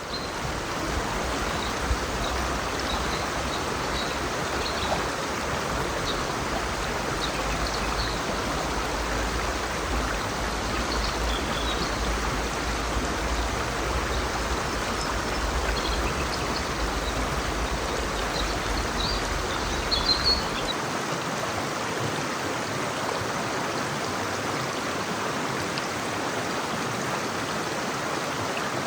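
Mountain river flowing over rocks: a steady rush of water, with faint short high chirps during the first two-thirds.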